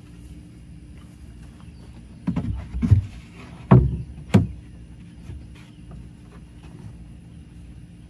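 Plywood top board being set down and knocked into place on a wooden drawer cabinet: about four knocks and thuds between two and four and a half seconds in.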